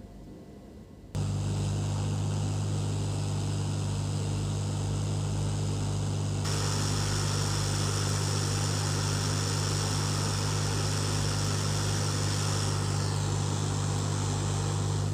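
Hot air rework station switched on about a second in and blowing steadily: a low fan hum under a rushing hiss of air, which grows brighter about six seconds in. It is being used to desolder a faulty MOSFET from the laptop motherboard.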